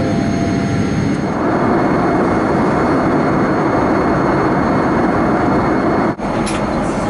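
Steady jet engine and airflow noise inside a Boeing 787-8 cabin in cruise, heard from a window seat beside the engine. It grows a little fuller about a second in and cuts out for an instant near the end.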